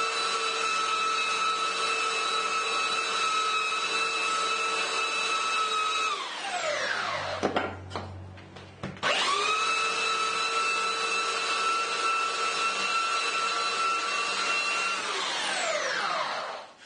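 Electric sander with 120-grit paper sanding a cedar tile, running in two stretches of about six seconds each. Each stretch ends with the motor switched off and winding down in falling pitch. This is the finish sanding after the coarse grit.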